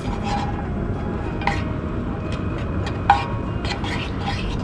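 Sliced garlic tipped from a small bowl into oil in a non-stick frying pan and stirred with a wooden spatula: scattered clinks and scrapes of bowl and spatula against the pan, the sharpest about three seconds in, over a steady low rumble.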